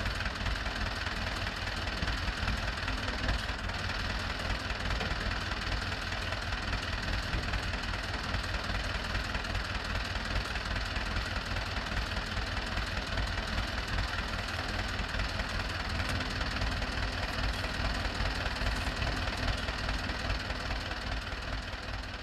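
Tractor engine running steadily with a rapid low throb, powering a round-bale wrapper as it turns a bale and wraps it in film.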